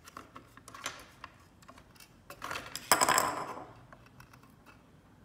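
Small metallic clicks and ticks of loose screws and a screwdriver on a router's circuit board, then a louder metal clatter and rattle lasting about a second, from about two and a half seconds in, as the thin metal antenna bracket is worked free of the board.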